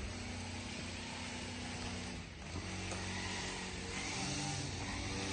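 A motor vehicle's engine running steadily, a low even hum, over a constant street background noise.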